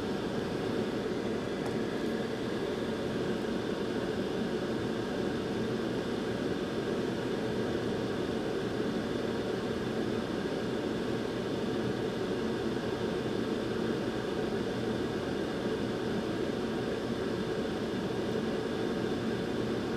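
Steady whooshing air noise from a fan-driven blower at a soldering bench, with a faint hum.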